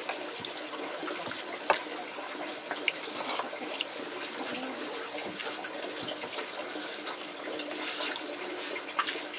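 Steady running water, with a few sharp clicks and knocks over it, the loudest about two seconds in.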